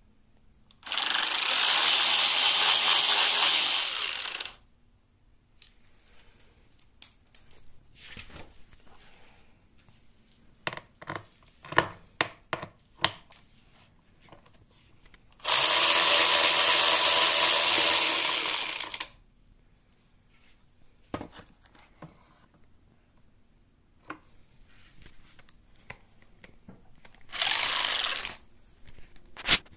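Cordless drill with a hex bit running three times, two runs of about three and a half seconds and a short one near the end, driving out bolts on the motorcycle's body panels. Small clicks and knocks of metal parts being handled come between the runs.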